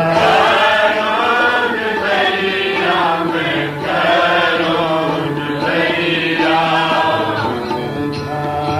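Devotional Sikh hymn (shabad) chanted by several voices together over a steady low drone, in phrases of about two seconds.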